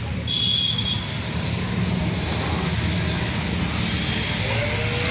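Steady low mechanical rumble, with a brief high-pitched tone about half a second in and a wavering tone starting near the end.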